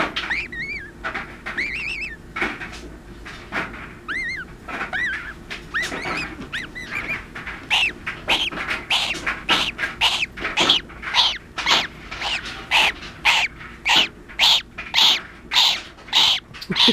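Newly hatched gosling peeping: a series of high, rise-and-fall calls, spaced out at first, then coming louder and quicker, about two a second, from about halfway through.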